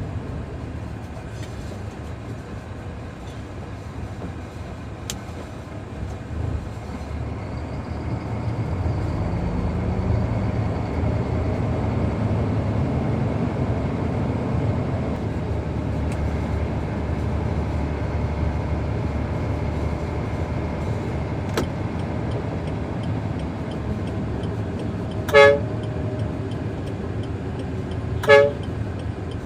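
Heavy diesel engine running steadily, its pitch rising briefly about a third of the way in, then two short, loud horn toots near the end.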